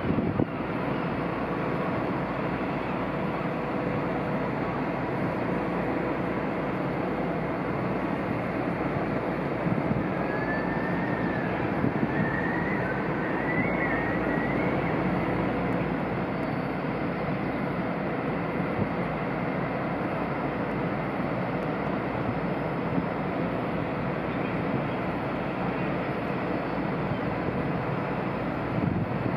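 Steady mechanical rumble of ship machinery with a faint steady hum, as a large cruise ship manoeuvres away from its berth, its stern churning the water. A brief faint warbling whistle comes about ten seconds in.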